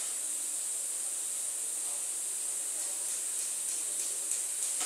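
TIG welding arc on stainless steel, a steady high hiss with a few faint crackling ticks in the second half.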